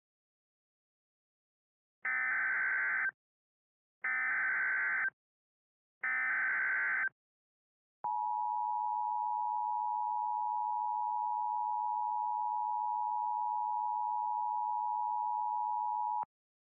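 Emergency Alert System SAME header: three buzzy data bursts, each about a second long and a second apart, starting about two seconds in. Then the EAS attention signal, a steady two-tone alarm held for about eight seconds, which cuts off abruptly just before the next bulletin.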